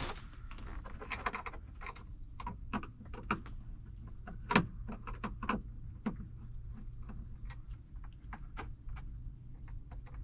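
Irregular small clicks and taps of hands and a tool working wire connections into a solar charge controller's terminals, the loudest about four and a half seconds in, over a steady low hum.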